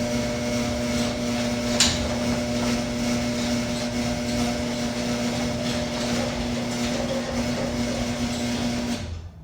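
Raynor 270-7 garage door opener running as it closes the door: a steady motor hum with a rattle, the opener's case vibrating, which is why it runs loud. A sharp click comes about two seconds in, and the motor stops just before the end.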